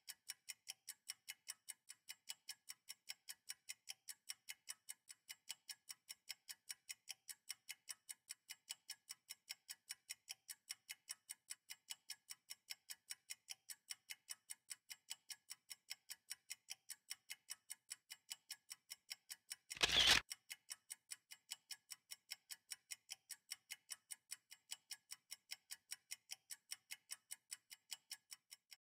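Steady clock-like ticking, about four ticks a second, laid over the time lapse as a sound effect, with one brief louder noise about twenty seconds in.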